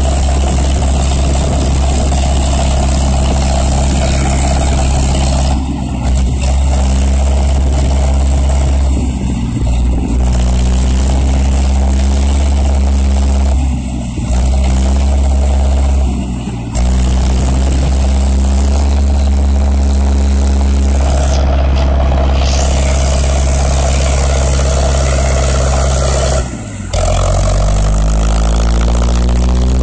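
The four-cylinder diesel engine of a Zetor 7011 tractor runs steadily under load while pulling a harrow through muddy ground, with a deep, even drone. The sound drops briefly a few times, and near the end the engine note rises as it speeds up.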